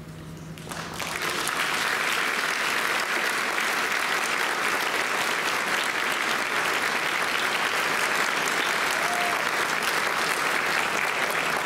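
Audience applause, starting about a second in and going on steadily after the choir's final chord has ended.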